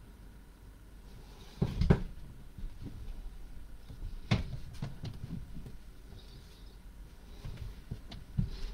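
A few scattered knocks and clicks from a person moving about at a computer desk: a dull thump about two seconds in, a sharp click a couple of seconds later and a few lighter ticks.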